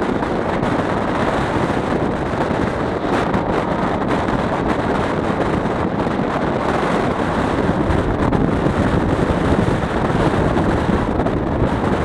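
Wind buffeting the microphone held out of a moving passenger train, over the train's steady running noise on the track. Loud and unbroken.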